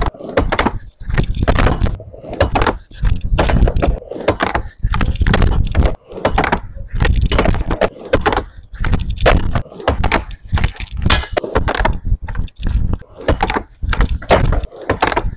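Skateboard wheels rolling on a wooden quarter pipe, with the board repeatedly clacking and slapping down on the ramp's deck and coping during blunt kickflip attempts. It comes in short, abruptly chopped bursts, one attempt after another.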